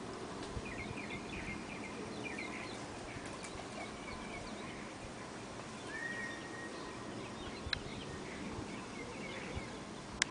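Outdoor ambience with small birds chirping on and off, a brief held whistle about six seconds in, and a sharp click near the end.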